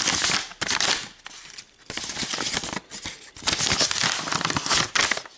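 Paper envelope rustling and crinkling in the hands as it is opened and handled, in several bursts of about a second each.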